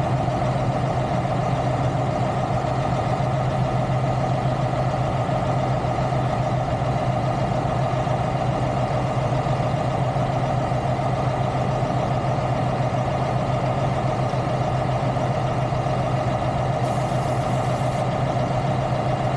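Heavy diesel truck engine idling steadily, with a brief high hiss lasting about a second near the end.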